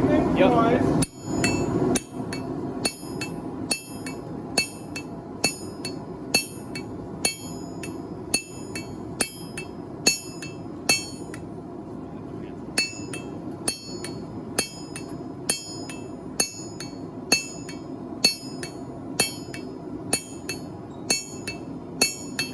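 Hand hammer forging hot steel (an old farrier's file being drawn out into scissors) on an anvil: steady repeated blows, a little faster than one a second, each with a bright high ring. There is a short pause about halfway through, and a steady low hum runs underneath.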